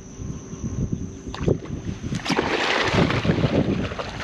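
Wind buffeting the microphone, with water splashing that rises about two seconds in as a hooked redfish thrashes at the surface.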